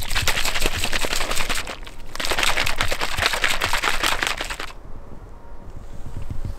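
Blue plastic Bivo drink bottle being shaken hard by hand to mix the oat-and-cocoa powder with hot water: a fast rattling slosh in two bouts with a short break between. The shaking stops about two-thirds of the way in.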